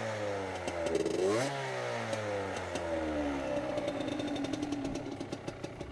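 Derbi Senda 50 supermoto's 50cc two-stroke engine blipped once. Its pitch jumps up about a second and a half in, then sinks back over about two seconds to a steady idle.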